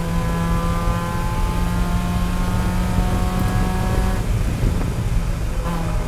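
Race car engine heard from inside the cabin, held at high revs of about 5,000–5,500 rpm under throttle, its pitch creeping up. About four seconds in, the engine note drops away as the driver lifts off, and it comes back on throttle near the end, over steady low road and wind rumble.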